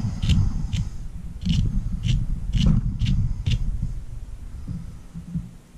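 A small wire-bristled dubbing brush raked through the synthetic EP brush fibers of a fly held in a tying vise: about seven short brushing strokes over the first three and a half seconds, with low handling thumps, then it stops.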